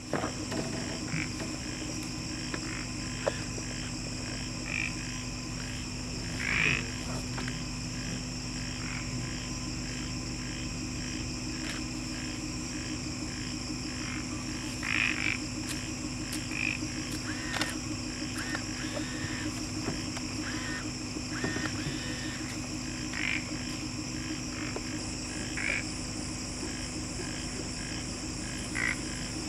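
Night chorus of frogs and insects: a steady high insect trill and a low pulsing frog chorus, with short louder calls every few seconds.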